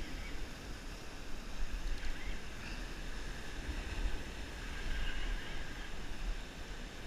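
Wind buffeting the microphone in a fluttering low rumble, over a steady wash of surf breaking and running up a sandy beach.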